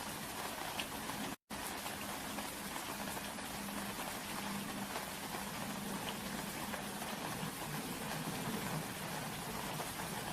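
Steady rain falling, an even dense hiss of drops. It cuts out to silence for an instant about a second and a half in.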